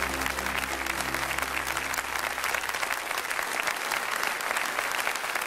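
Studio audience applauding steadily, with the orchestra's last low held chord dying away about three seconds in.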